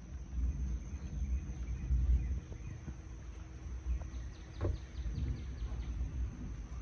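Outdoor ambience in light rain: a low, uneven rumble of wind on the microphone under a steady high-pitched insect drone. About four seconds in, a bird gives a quick series of short chirps.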